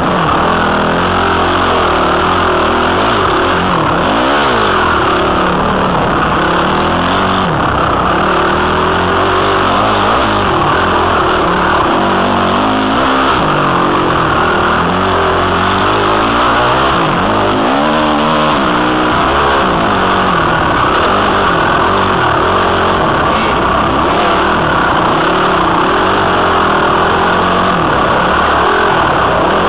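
Honda CRF250 dirt bike's single-cylinder four-stroke engine running under load, heard up close from the rider's helmet, its revs rising and falling several times with the throttle.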